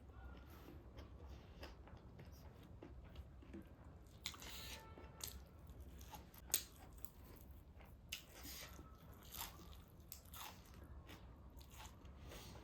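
Close eating sounds: a person chewing and crunching food in irregular mouthfuls, with one sharp click about six and a half seconds in.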